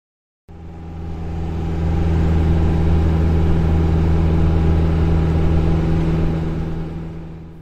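A vehicle engine droning steadily, heard from inside. It starts suddenly about half a second in, swells over the next second or so, and fades out near the end.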